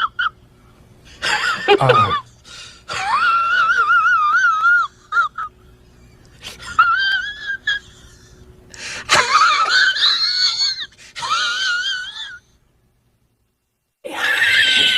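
High-pitched, wheezing laugh sound effect in four or five wavering, squealing bursts, then cut off to dead silence near the end.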